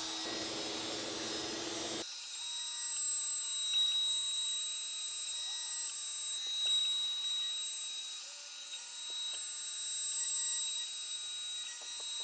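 Trim-router spindle of a Shapeoko CNC running and cutting a groove into a pine board, with a shop vacuum pulling on the dust boot: a steady whine over machine noise. About two seconds in the sound changes abruptly to a thinner high-pitched whine and hiss with a wavering loudness.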